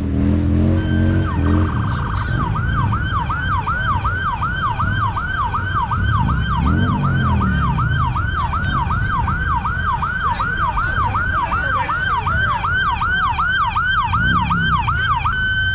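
Emergency vehicle's electronic siren, starting as a steady tone, then briefly warbling fast, then switching to a rapid yelp of about three sweeps a second, over a low vehicle engine rumble.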